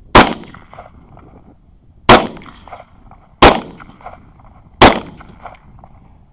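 Four rifle shots from a 6.8 SPC rifle, fired about one and a half to two seconds apart, each a sharp crack with a short echo trailing off.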